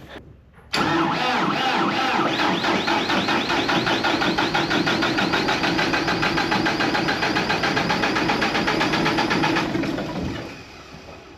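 Massey Ferguson 4707 diesel tractor being cranked over in sub-zero cold, struggling to start. The cranking starts abruptly under a second in, runs steadily with a fast even chug for about nine seconds, then stops.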